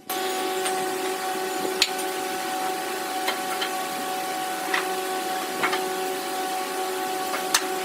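A workshop machine's electric motor running steadily with a hum, with a handful of sharp clicks or knocks at irregular times.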